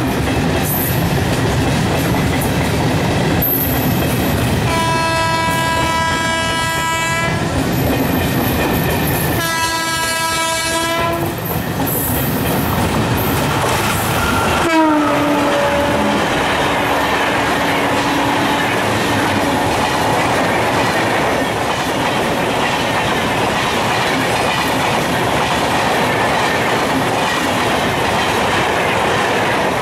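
A train passing at speed: the locomotive's horn sounds two long blasts, then a third note drops sharply in pitch as the locomotive goes by. After that comes the steady rumble and clickety-clack of the coaches running past.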